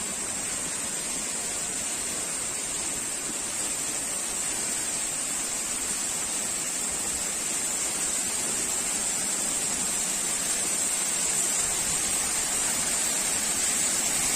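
Waterfall: the steady rushing noise of falling water, growing slowly louder.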